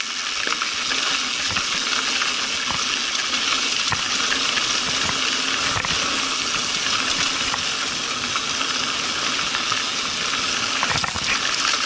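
Mountain bike rolling fast down a dirt singletrack, picked up by a handlebar-mounted camera: a steady gritty hiss of tyres on dirt and gravel, with scattered small clicks and rattles from the bike.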